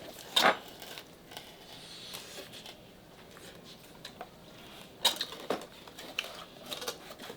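Eating and food-handling noises: faint chewing with a few sharp clicks and crackles, the loudest about half a second in and again around five seconds in.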